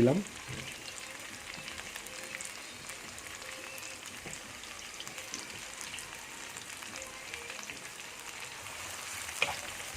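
Chopped carrots frying in butter in a pan over high heat: a steady sizzle with fine crackles, and one sharp tap near the end.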